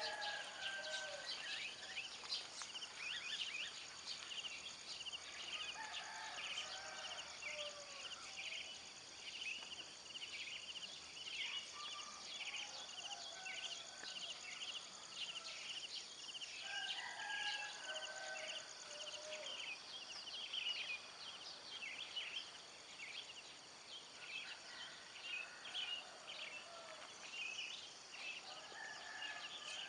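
Many small birds chirping at dawn in quick, continuous short calls, with lower, fuller calls breaking in every few seconds.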